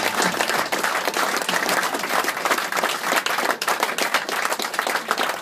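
Audience applauding, many hands clapping in a dense, even patter.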